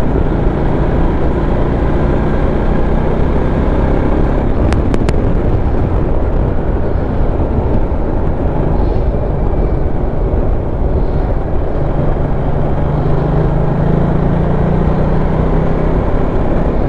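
Motorcycle running along the road, its engine a low steady hum under heavy wind rush over the microphone; the engine note grows stronger about twelve seconds in, and there are two sharp clicks near five seconds.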